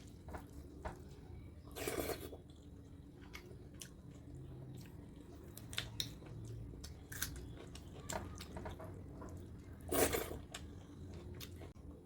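Close-up eating sounds: chewing, with many small clicks and two louder bites, about two seconds in and again near the end.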